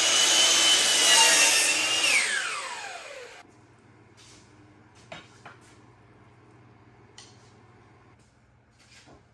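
Miter saw cutting wood. Its motor whine holds steady, then winds down in pitch about two seconds in, and the sound cuts off abruptly about three and a half seconds in. A few faint clicks and knocks follow.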